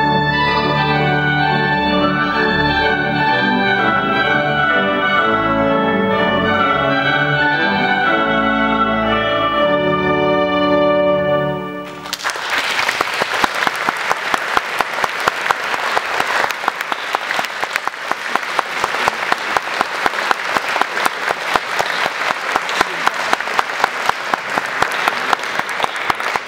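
Flute and pipe organ playing together, the piece ending about twelve seconds in, followed by sustained audience applause.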